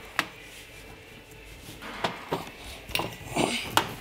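A pry tool scraping and clicking against metal inside the bore of a Kia Sorento transfer case, working out the remains of its smashed metal dust shield. One click just after the start, then a run of short scrapes and clicks in the second half.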